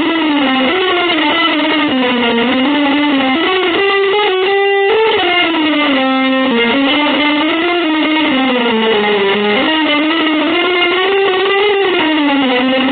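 Distorted electric guitar playing one unbroken, sustained melodic line that slides up and down in pitch, with brief changes in tone about four and six seconds in.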